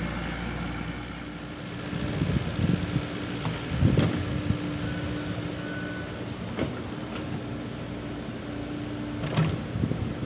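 Excavator working: a steady engine drone with a few sharp knocks and thuds, about three in all.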